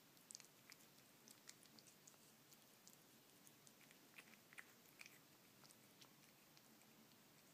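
A cat chewing soft, wet canned skipjack tuna, making faint, irregular little smacking clicks.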